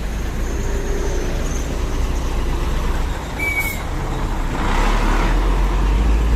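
A motor vehicle's engine running steadily, its low rumble growing louder about two-thirds of the way through, with a brief high squeak about halfway.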